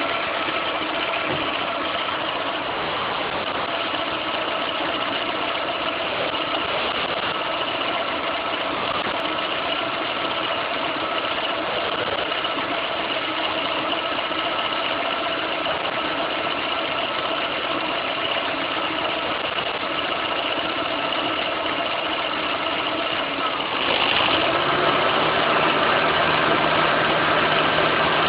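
Car engine idling steadily. Near the end the electric radiator cooling fan switches on and adds a louder steady hum.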